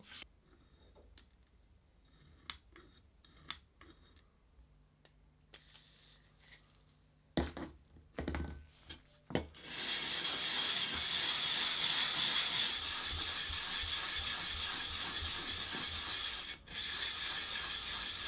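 Sole of a Stanley 75 bullnose plane rubbed back and forth on wet sandpaper to flatten it: a steady scratchy rubbing that starts about ten seconds in, after a few light clicks and knocks as the plane is handled and set down.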